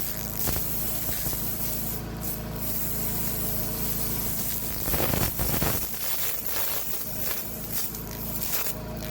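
200 W pulsed laser ablating tarnish from antique metal, a steady hissing, sizzling noise over the constant hum of the laser unit. It is louder for a moment about five seconds in.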